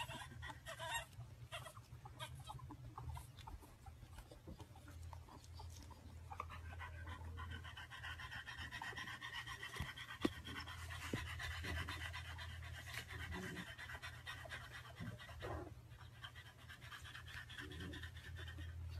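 French bulldog panting rapidly, growing louder from about six seconds in until about sixteen seconds, over a low steady hum.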